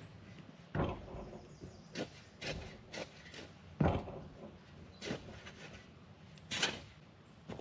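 A run of irregular knocks and clunks from equipment being handled, about seven over the stretch, the loudest a little before the middle.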